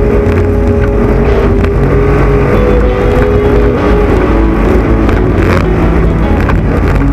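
Off-road trophy truck's race engine running hard under load, loud and continuous, its pitch holding and stepping up and down as it drives.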